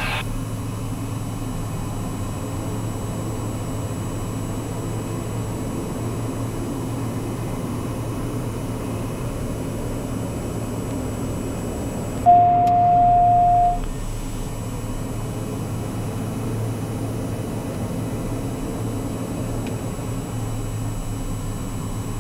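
Steady cabin drone of a TBM 910's Pratt & Whitney PT6A turboprop at low taxi power, heard from inside the cockpit. About twelve seconds in, a single steady electronic tone sounds for about a second and a half.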